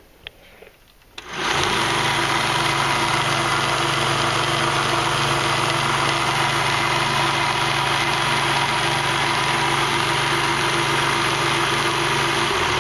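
A Central Machinery 1x30-inch belt sander is switched on with a click. About a second in its motor spins up, then runs steadily with the belt running free and nothing being sanded. It begins to wind down at the very end.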